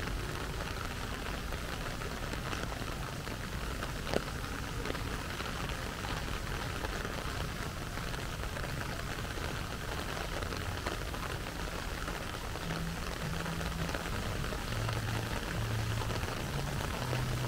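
Steady rain falling, with many small drop ticks and one sharper tick about four seconds in. A low hum comes and goes in the last few seconds.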